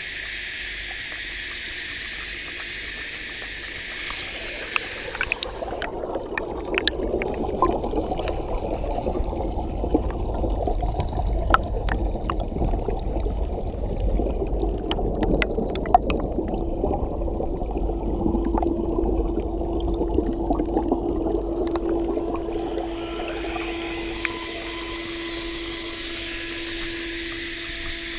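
Water in a heavily aerated tank, bubbling and splashing, heard first as a fizzing hiss at the surface. About five seconds in the microphone goes underwater: the sound turns muffled and low, a dense churn of bubbles with scattered clicks and crackles. A few seconds before the end it comes back up to the surface hiss.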